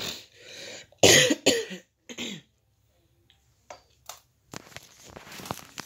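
A person coughing in a quick run of two or three short, loud coughs about a second in.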